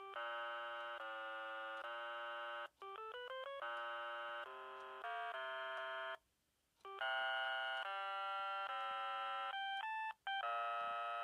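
A simple electronic tune of held beeping notes, with a quick rising run of short notes about three seconds in, played back over a telephone line and heard through a handset's earpiece.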